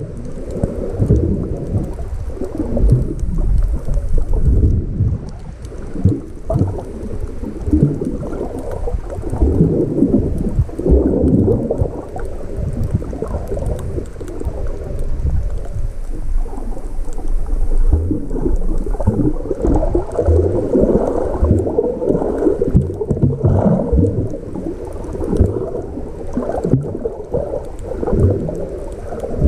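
Muffled rumbling and sloshing of water heard through a GoPro Hero 5 Black's microphone held underwater while snorkeling, coming in irregular surges every second or so.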